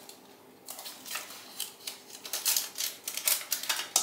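Baking paper crinkling and crackling irregularly as hands press and tuck a sheet of puff pastry into a lined baking tin, starting about a second in and getting busier toward the end.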